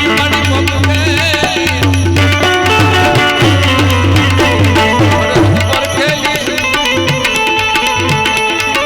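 Instrumental interlude of live Gujarati devotional music: a tabla keeps a steady beat under melodic instruments.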